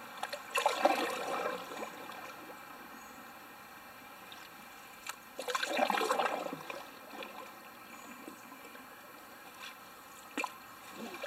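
Canoe paddle strokes in river water: two splashing, gurgling strokes, one near the start and one about five seconds later, with quiet water between.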